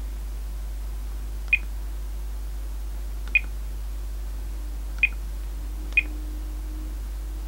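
Four short, high beeps from a Thermo Scientific RadEye G-10 gamma survey meter as its keys are pressed to step through its menus. The beeps are unevenly spaced, over a steady low hum.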